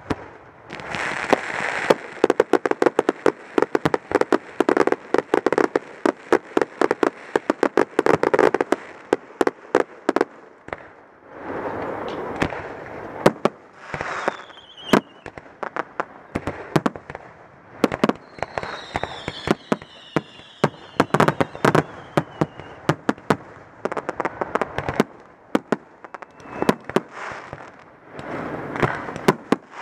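Aerial fireworks display: a rapid, irregular run of sharp bangs as shells launch and burst one after another. Around the middle, several whistles glide down in pitch.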